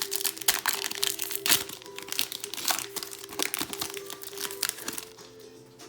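Foil wrapper of a Pokémon trading card booster pack crinkling and tearing as it is opened: a quick run of sharp crackles that dies down about five seconds in.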